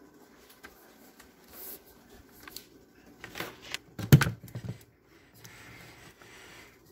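Handling and rustling noises as a phone camera is carried and things are moved at a kitchen counter, with one dull thump about four seconds in and a soft rustle near the end.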